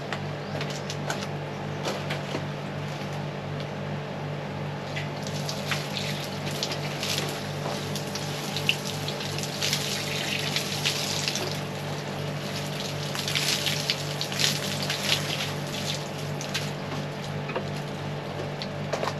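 Water from a garden hose spraying onto a freshly planted pot of plants and its soil, loudest through the middle, over a steady low hum.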